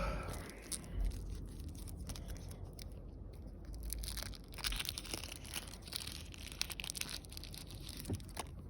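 A small packet being torn open and handled, with faint crinkling and scattered small clicks and taps.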